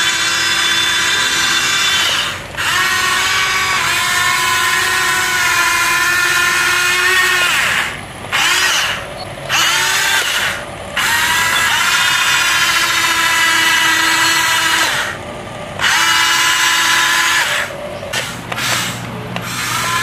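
Electric track-drive motors and gearboxes of a tracked RC crawler built on a Huina 1550 RC excavator undercarriage, whining as it drives. The whine cuts out several times and slides up in pitch each time it starts again.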